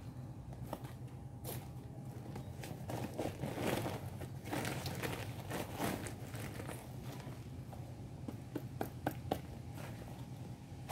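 Woven plastic cement sack crinkling as a trowel scrapes and scoops gritty cement out of it, in irregular bursts, with a few sharp clicks near the end, over a steady low hum.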